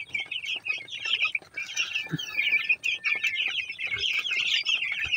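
A flock of twelve-day-old broiler chicks peeping: many short, high, falling cheeps overlapping without a break.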